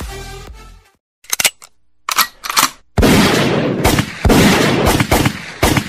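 Intro music fading out, then gunfire sound effects: two short bursts of shots, then longer runs of rapid automatic fire from about three seconds in.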